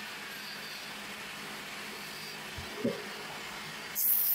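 Electric wood lathe running steadily with a low motor hum. There is a brief knock a little past halfway, and near the end a loud hissing scrape starts as the turning tool cuts into the spinning wood.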